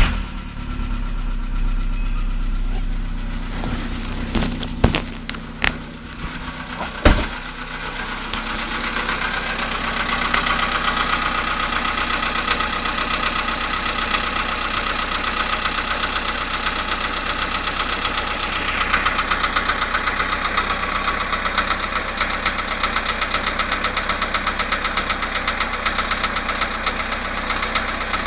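Volkswagen Polo sedan petrol engine idling just after a cold start, with a rapid metallic knock running through the idle: the cold-engine knock the owner is documenting. Three sharp knocks stand out in the first several seconds.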